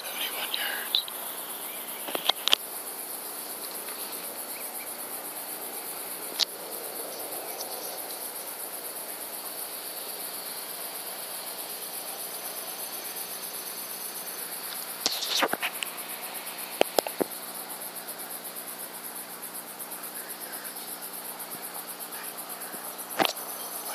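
Crickets chirping in a steady, rapid high-pitched chorus, with a few short sharp clicks scattered through it.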